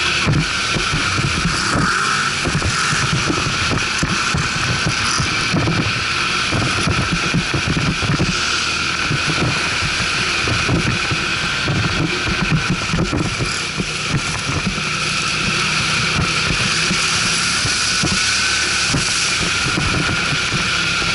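ATV engine running steadily under way, with wind buffeting the microphone and rough jolts from the ride.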